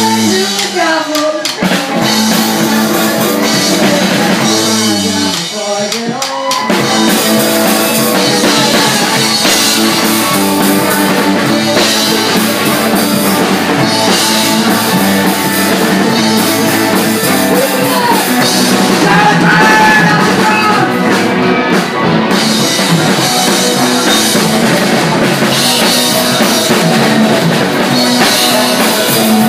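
Live rock band playing loudly: a drum kit with bass drum and cymbals, together with electric guitars.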